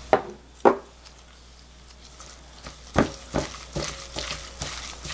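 A wooden spoon knocks twice against a ceramic mixing bowl, then a gloved hand tosses and squeezes blanched cabbage greens with sesame oil in the bowl, giving soft, irregular squishes and light thumps.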